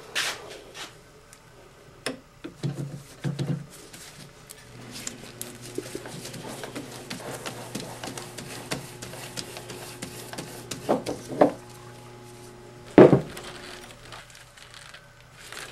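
Clinks, knocks and rubbing of metal lathe headstock parts being handled as the chuck is gripped and the flexible link belt is worked off, with the sharpest knock about thirteen seconds in. A faint steady hum runs under the middle part.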